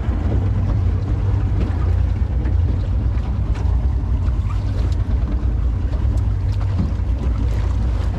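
Mercury outboard motor running steadily with a low rumble as a small aluminium boat moves over open water, with short slaps of water against the hull and wind buffeting the microphone.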